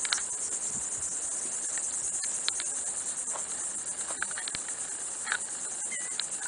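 Steady high-pitched insect chorus, a dense shrill buzz from the shrubs, with a few faint clicks.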